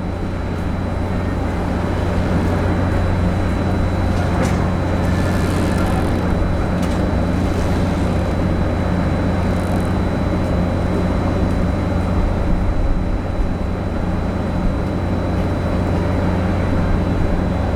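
Steady low drone of the Hahajima Maru's diesel engines, heard from on deck while the ship manoeuvres to berth.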